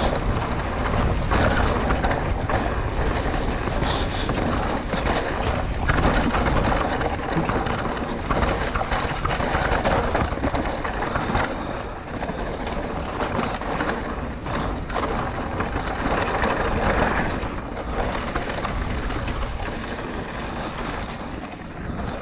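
Trek Rail electric mountain bike riding down a rough dirt trail: steady rolling noise of tyres on dirt and a continual rattle and knocking of the bike over bumps.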